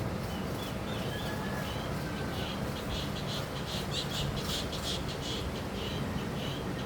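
Repeated short, high chirps from small animals, thickest in the middle stretch, over a steady low background hum.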